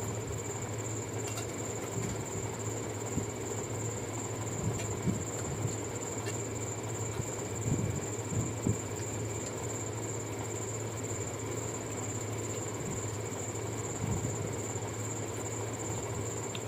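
Steady mechanical hum with a faint constant high whine, and a few soft knocks about five and eight to nine seconds in.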